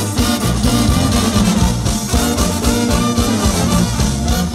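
Lively band music with a steady bass beat.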